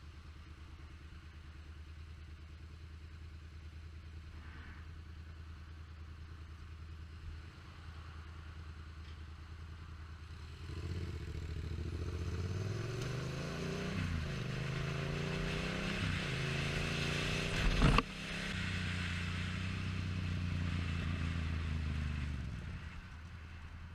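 Yamaha FZ-07's parallel-twin engine idling, then pulling away about halfway through, its pitch climbing and dropping as it shifts up through the gears. A single sharp loud crack comes about three quarters in, then the engine runs on steadily before falling back to idle near the end.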